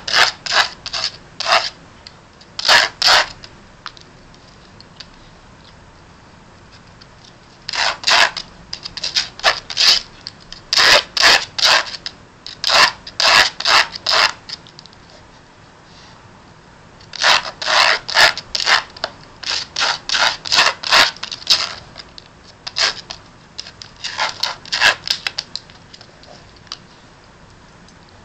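A Border Collie's claws raking across an abrasive scratch pad, filing her nails down: runs of quick scratching strokes, about three a second, in bursts of several strokes with short pauses between.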